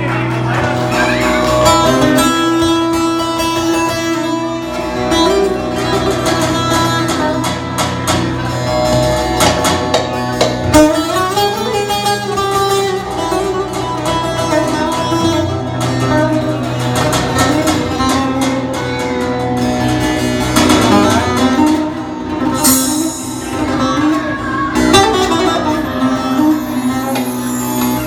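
Instrumental introduction to a Turkish folk song, led by a plucked bağlama (long-necked saz) playing a winding melody, with other instruments of the band.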